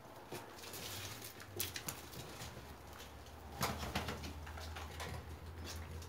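A flock of domestic pigeons cooing in a loft, with short flurries of wing flapping about one and a half seconds in and again near the four-second mark.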